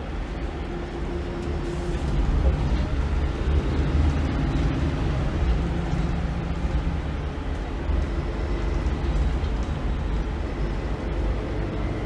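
Volvo B8RLE bus's rear-mounted 7.7-litre six-cylinder diesel engine running under way, with road and body noise, heard from the rear seats inside the cabin. It gets louder about two seconds in, as the bus pulls harder.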